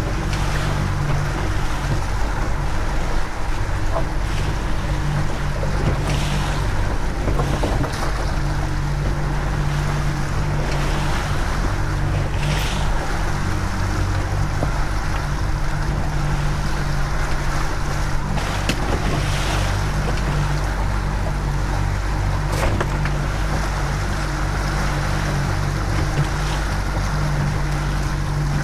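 Yamaha 115 outboard motor running steadily at trolling speed, with water rushing in the wake and wind on the microphone.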